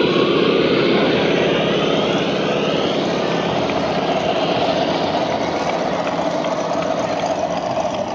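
Electric motor and gear whine of a radio-controlled off-road truck driving, the pitch sliding upward about two seconds in, then holding a steady lower tone.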